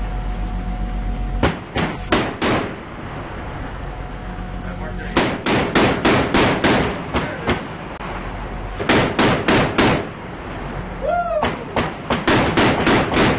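Shipboard gun firing at sea in four bursts of rapid shots, roughly four or five shots a second, over a steady low hum.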